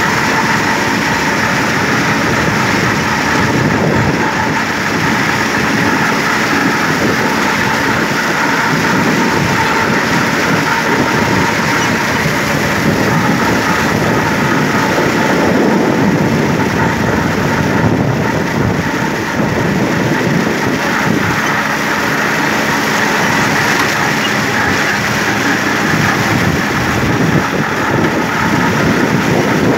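Tümosan 5275 tractor's diesel engine running steadily under load while its Türkay drum mower spins, cutting standing triticale. It is a loud, unbroken mix of engine noise and mower hum, with a faint steady whine.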